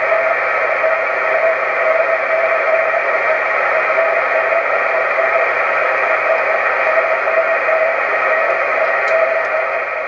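Receiver audio from an amateur all-mode transceiver tuned to a 10 GHz microwave beacon: steady receiver hiss with the beacon's slightly fluttering tone held steadily above it.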